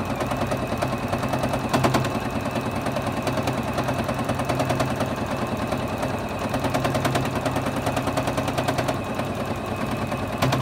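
Juki HZL-F600 (Exceed) domestic sewing machine stitching steadily during free-motion quilting: a rapid, even clatter of stitches.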